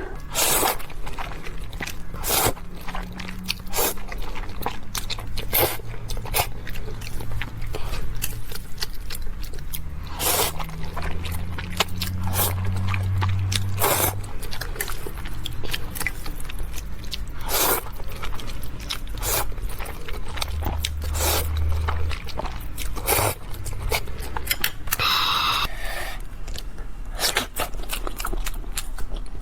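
Close-miked chewing and eating, with many short sharp mouth and bite sounds throughout.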